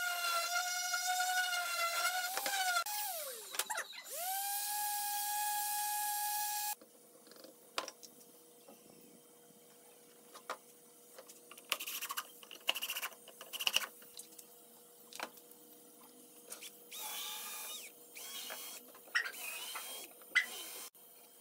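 Electric random orbit sander running on a pine board with a steady whine. About 3 s in it winds down in pitch and then speeds back up, and it stops abruptly about 7 s in. Later come light knocks of wooden parts being handled and several short bursts of a cordless drill spinning up as it drills into the pine.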